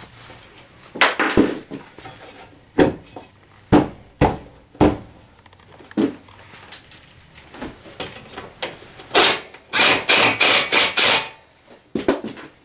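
Hand socket ratchet driving the rear rack's mounting screws: scattered sharp metallic clicks and knocks, then a quick run of ratchet strokes, about four a second for some two seconds, near the end.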